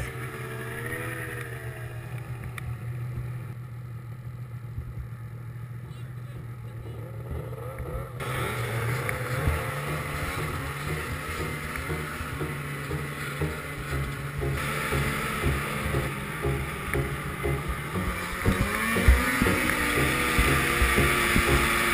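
Snowmobile engine running while riding along the trail, fairly quiet for the first several seconds, then louder, and rising in pitch near the end as the sled speeds up.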